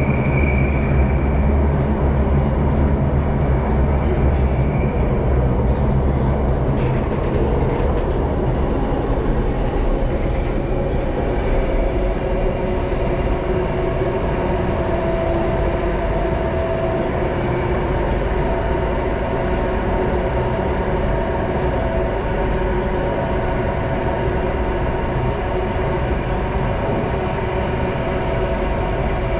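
Circle Line MRT train (Alstom Metropolis) running through a tunnel, heard from inside the carriage: a steady rumble of wheels and running gear, deeper for the first several seconds. A high whine fades out in the first few seconds, and a humming drone of a few tones sets in around the middle.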